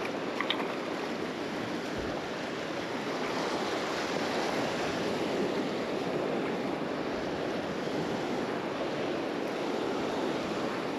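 Small surf waves breaking and washing over the sand in a steady hiss.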